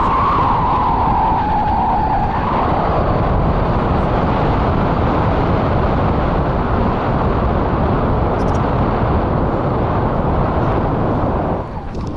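Steady loud wind rushing over the camera microphone during a tandem paraglider flight, with a wavering high tone in the first couple of seconds that fades out; the rush drops briefly near the end.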